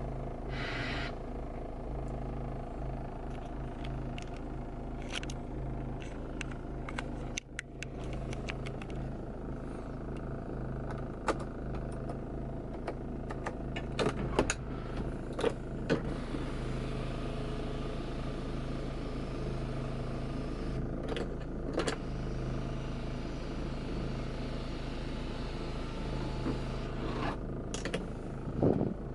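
GM Daewoo Winstorm SUV engine running steadily with a low even hum, with scattered short clicks and knocks.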